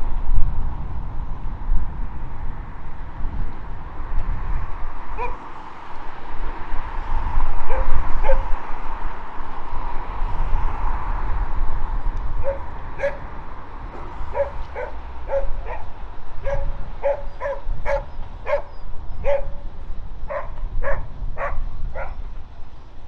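A small dog yapping in short, high barks: a few scattered yips at first, then a steady run of about two barks a second through the second half. Underneath is a steady low rumble and hiss.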